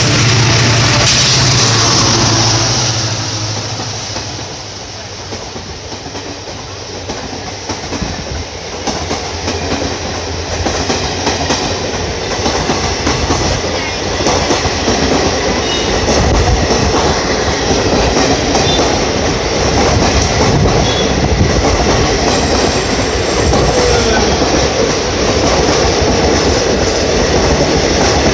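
Indian Railways WDP4 diesel locomotive (EMD two-stroke V16) running through at speed, followed by a long rake of passenger coaches rushing past with wheels clattering over rail joints and some wheel squeal. The sound dips a few seconds in, then the coach noise builds and stays loud.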